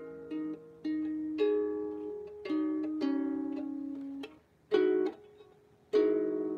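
Out-of-tune harp plucked slowly, single notes and small chords ringing and fading one after another, with two brief hushes in the second half before a strongly plucked chord that rings on.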